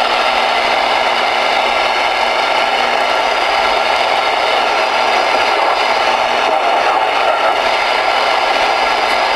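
Steady receiver static hissing from a Voyage VR-9000 ten-meter radio's speaker, the channel open with no station answering.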